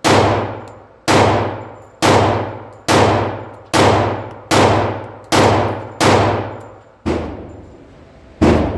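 Glock 20 10mm Auto pistol firing CCI Blazer Brass 180-grain rounds in steady slow fire: about ten loud shots, roughly one a second, each with a long echoing tail.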